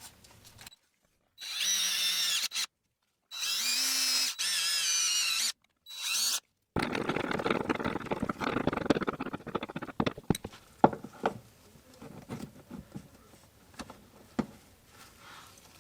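Power drill running in three short bursts with a steady high-pitched whine, boring out the hole in a shift linkage end link so a thicker selector rod will fit. After that comes a rougher scraping stretch, then scattered clicks and knocks.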